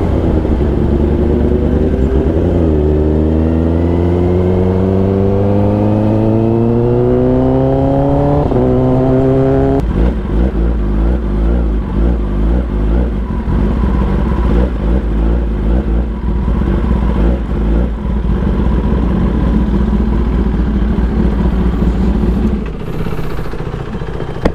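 Kawasaki ZX-10R inline-four sport bike with a loud aftermarket exhaust, accelerating with the engine note rising steadily through a gear. About eight seconds in there is a quick upshift, and the revs climb again. Around ten seconds in the throttle closes and the engine runs unevenly off throttle, fading near the end as the bike slows.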